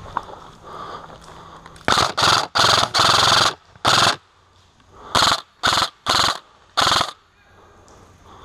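M4-style airsoft rifle firing about eight short bursts of rapid fire, one of them longer, starting about two seconds in.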